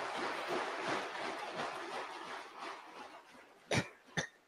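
Legislators applauding, a dense patter that fades away about three seconds in, followed by two sharp knocks near the end.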